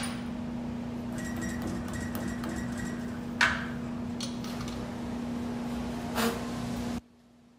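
Hitachi electric drill on a drill stand running steadily with a constant hum as its bit cuts into a metal workpiece. A thin whine comes from the cut for a couple of seconds, with a sharp metallic knock about three and a half seconds in and another near the end. The drill stops suddenly near the end.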